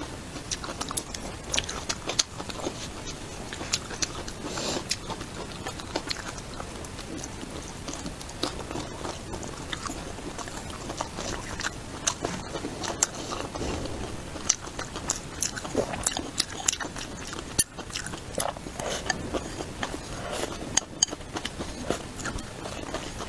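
A person chewing and biting food close to the microphone, with frequent irregular sharp clicks and wet mouth sounds.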